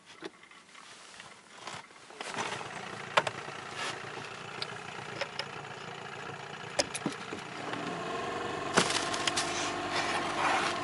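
Small outboard motor on an inflatable boat comes in about two seconds in and runs, settling into a steady hum from about eight seconds as the boat moves off. A few sharp knocks sound on top.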